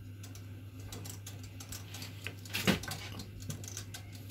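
Mechanical oven timer knob being wound round, a rapid run of small ratcheting clicks with one louder click about two and a half seconds in, over a steady low hum.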